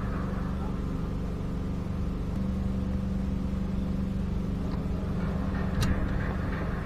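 A steady, low engine hum, with a single sharp click a little before the end.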